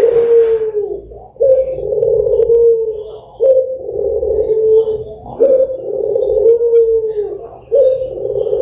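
Domestic ringneck dove (puter) cooing: long, rolling coos, one after another about every two seconds, with a brief scratchy noise at the very start.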